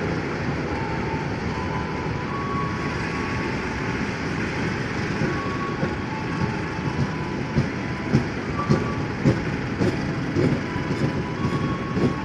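Passenger train coaches rolling past on steel rails with a steady rumble and faint short squeals. From about halfway, irregular clacks of the wheels running over rail joints join in.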